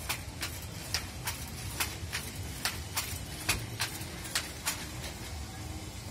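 Multi-spindle Ambar charkha being hand-worked, its mechanism giving sharp, regular clicks about two to three times a second that stop near the end.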